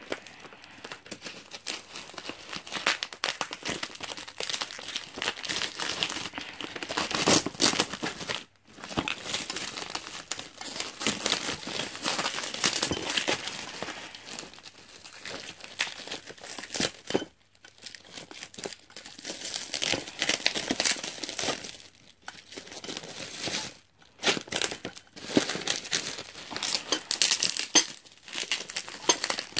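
Plastic packaging being crinkled, pulled and torn off the parts of a newly unboxed stand, in an irregular crackle with a few brief pauses.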